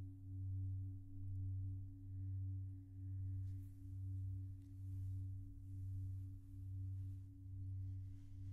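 Singing bowl sounding a steady low hum with a fainter overtone above it. Its tone swells and fades in an even pulse a little faster than once a second.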